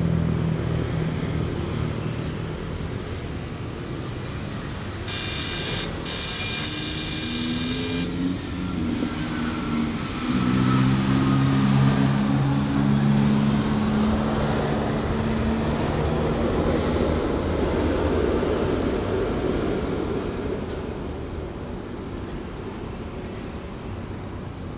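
Engine noise from passing vehicles over a steady background din; the engine pitch shifts and swells, loudest around the middle. About five seconds in, a steady high tone like a horn sounds for about three seconds.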